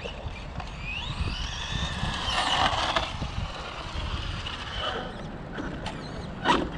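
Traxxas X01 RC car's brushless motor whining at low throttle as the car creeps along. The whine glides up and down in pitch with the throttle, strongest a second or two in.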